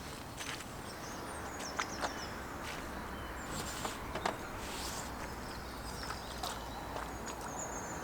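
Outdoor ambience with small birds chirping in short high calls, a few scattered clicks and taps, over a steady low background rumble.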